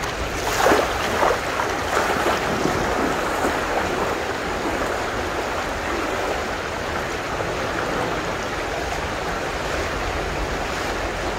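Fast-running flash floodwater rushing down a street after a downpour: a steady, heavy rush of water with some stronger surges in the first few seconds.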